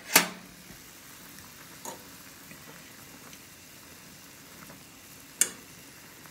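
A pot of instant ramen noodles boiling hard, a steady bubbling hiss. Sharp clacks cut through it: a loud one just after the start, a fainter one near two seconds in, and another loud one about five and a half seconds in.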